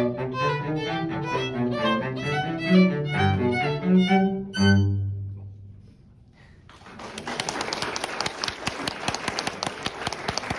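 Violin and cello duet playing the final bars of a piece, closing on a low held note that fades out about halfway through. After a short pause, audience applause begins.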